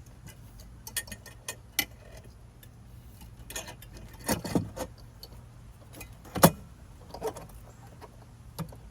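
Metal clamp band of a DE pool filter being fitted around the tank and lid: scattered metallic clicks and clanks, with the sharpest knock about six and a half seconds in.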